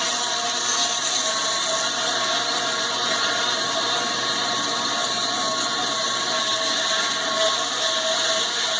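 Stark electric meat band saw running steadily, a constant motor-and-blade hum with a few steady tones over a high hiss, while it cuts up lamb.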